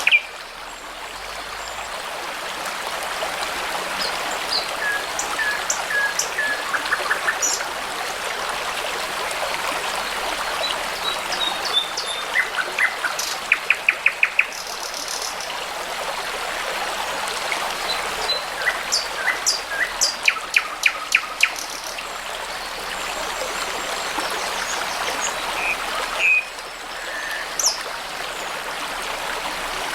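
A babbling brook runs steadily while songbirds sing and chirp over it, with two quick runs of rapidly repeated notes in the middle.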